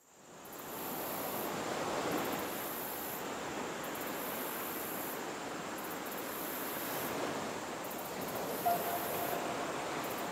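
Steady wash of sea surf and wind below a sea cliff, fading in over the first second. A brief thin steady tone sounds near the end.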